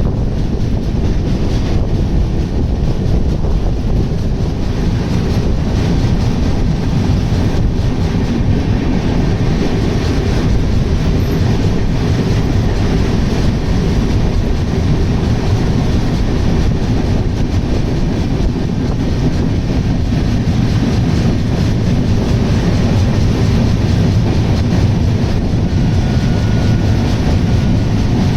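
Train running at speed: a loud, continuous rumble of wheels on the track with the clickety-clack of rail joints.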